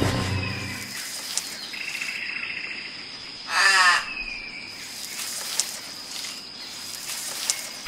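Nature ambience sound effect: a steady background hiss with faint short bird calls, and a louder animal call of quick repeated strokes about three and a half seconds in, lasting about half a second.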